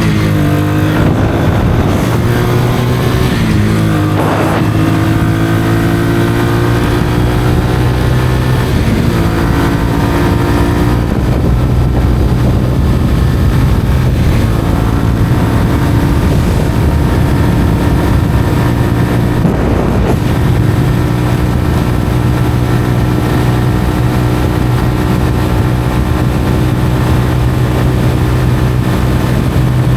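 Honda CBR125R's single-cylinder four-stroke engine through a Mivv aftermarket exhaust, running under way at a mostly steady pitch, with a few brief changes in engine speed in the first half.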